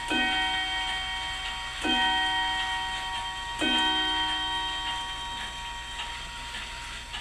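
Mantel bracket clock striking the hour: three slow, evenly spaced strokes about two seconds apart, each ringing on and fading. After the last stroke the clock's movement ticks, with small clicks.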